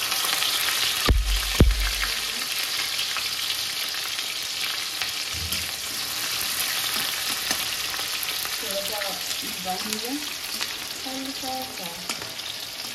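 Chopped garlic, ginger and vegetables sizzling steadily in hot oil while being stirred in the pan, with two sharp knocks about a second in.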